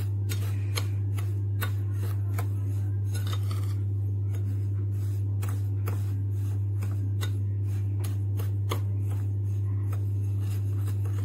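Metal spoon stirring sugar and ground cinnamon in a ceramic bowl, scraping and ticking against the bowl at an uneven pace, over a steady low hum.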